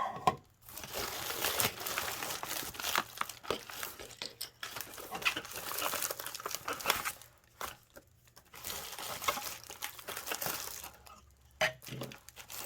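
Plastic packaging crinkling and rustling in irregular bursts with small clicks, as the parcel and its bagged contents are handled and opened.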